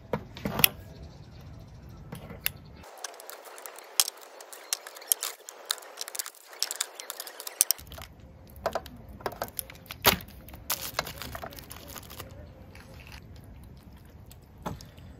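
Kitchen scissors clicking as they cut a block of tofu, then plastic packaging crinkling and rustling over an aluminium foil tray: an irregular run of sharp clicks and rustles.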